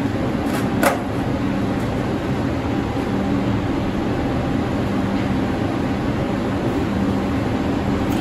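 An R62A subway car's steady rumble and hum, with one short sharp clank about a second in.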